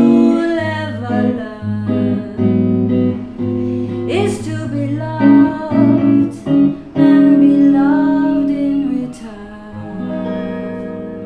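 Acoustic guitar playing chords under a voice singing a slow, drawn-out closing phrase with bending notes; a final chord rings and fades out near the end.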